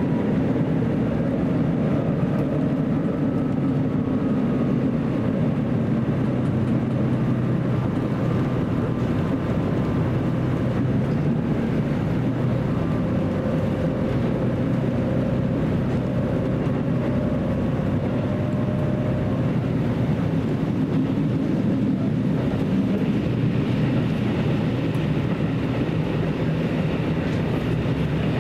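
Running sound heard aboard a JR Central KiHa 75 diesel railcar under way: the steady drone of its diesel engine and drive with wheel and rail noise. A higher whine joins about three quarters of the way through.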